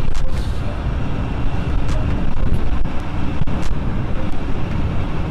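Hero Xtreme 160R motorcycle on the move: a steady low rumble of engine and road noise with wind rushing over the bike-mounted microphone.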